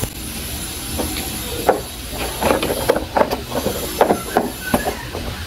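Hands handling wires, small driving-light units and their cardboard box: a quick irregular run of small clicks, taps and knocks over a steady hiss.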